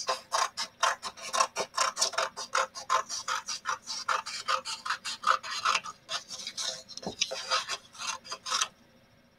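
Scissors cutting through a sheet of yellow paper in quick, repeated snips, several a second, stopping about a second before the end.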